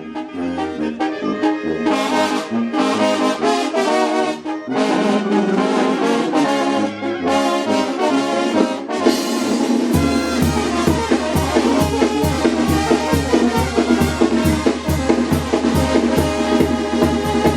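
Mexican banda, a brass band, playing with trumpets and trombones over a steady drum beat. A low, rhythmic bass line comes in about ten seconds in.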